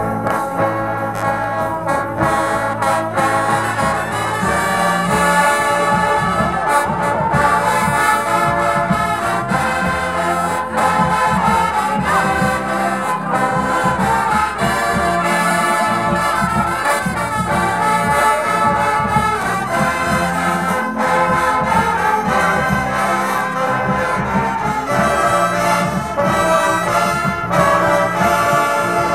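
A marching band's brass section playing a tune together: trumpets, trombones and mellophones carrying the melody over sousaphones holding long low notes.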